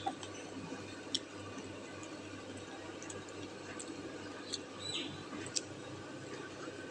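A few light clicks of chopsticks against the metal pot while wontons are picked out of the broth, over a low steady hum.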